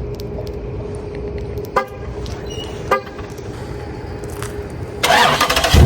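Two short horn chirps from a 2021 Dodge Charger Scat Pack, about two and three seconds in, then the starter cranking near the end as its 6.4-litre 392 HEMI V8 is started.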